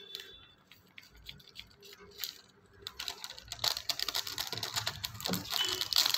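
Crinkling of plastic seasoning sachets being handled, torn and shaken out over a pan of noodles: a few scattered clicks at first, then from about three seconds in a dense crackle of small rapid ticks.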